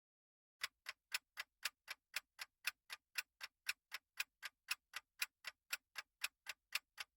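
Countdown timer's clock-tick sound effect: even, sharp ticks about four a second, starting about half a second in.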